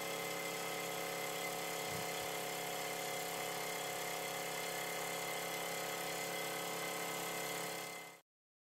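Wilesco D455 live-steam model engine running at a steady speed, a continuous mechanical whirr with several steady tones. The sound fades out and stops about eight seconds in.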